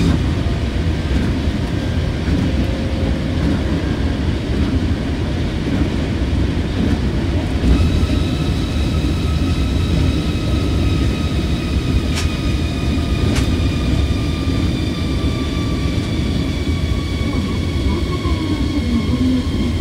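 Osaka Monorail 2000 series train running along its track: a steady low rumble of rubber tyres on the concrete guideway beam. From about eight seconds in, the traction motors' inverter whine sounds over it and falls slowly in pitch. Two brief clicks come just past the middle.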